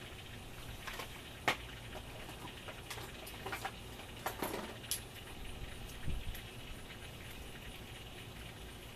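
Scattered light clicks and clinks of metal hand tools being handled, the sharpest about one and a half seconds in, a quick run of them around the middle, and a dull thump about six seconds in.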